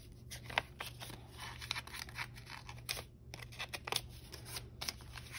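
Paper being handled: a one-dollar bill folded and rustled, giving faint, irregular short crinkles and taps.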